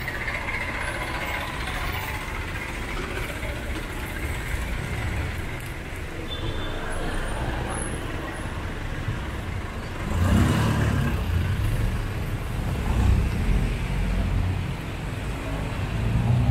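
Street traffic: a steady background of passing vehicles, then a motor vehicle's engine close by and louder from about ten seconds in.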